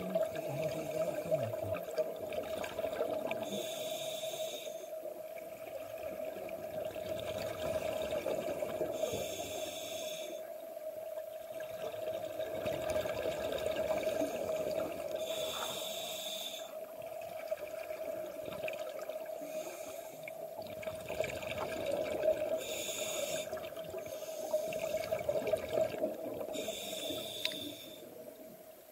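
Scuba diver breathing through a regulator underwater: five rushes of exhaled bubbles, one about every five to six seconds, over a steady hum.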